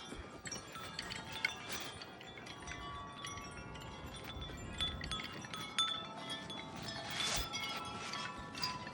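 Wind chimes ringing continuously as gusts swing them: many overlapping clear metallic tones at different pitches, each struck and left to ring on, over a faint rush of wind.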